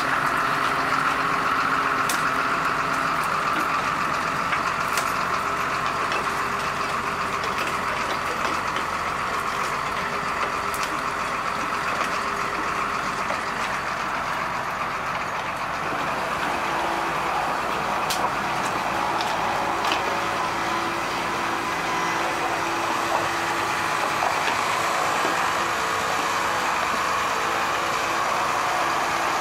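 Case CX350C hydraulic excavator's diesel engine idling steadily.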